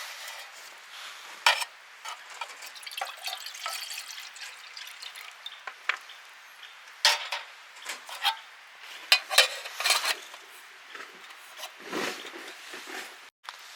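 Metal camp cookware and utensils being handled: scattered clinks, knocks and scrapes, with a cluster of sharper clinks in the middle.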